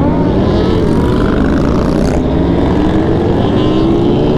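Sportbike engine, heard from the rider's seat, pulling steadily under acceleration, its pitch climbing slowly, with heavy wind noise on the microphone.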